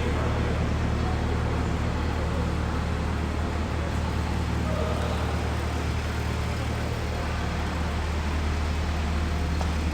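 A steady low mechanical drone over a background hiss, unchanging throughout.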